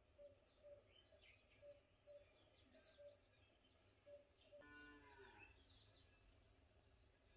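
Near silence with faint birds chirping: quick high chirps, and a short note repeating about twice a second. One brief lower, falling call comes about two-thirds of the way through.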